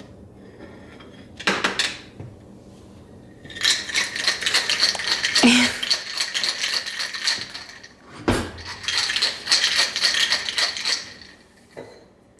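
Ice rattling hard inside a cocktail shaker, shaken in two bouts of a few seconds each, with a single knock between them.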